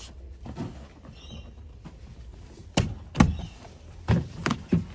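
Knocks and clicks of car door parts being handled and fitted back into the door, five sharp knocks coming in the second half.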